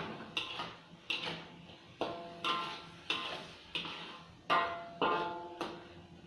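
A metal spatula strikes and scrapes a stainless steel wok while stir-frying prawns, about ten clanks at an uneven pace. Each clank leaves the wok ringing briefly.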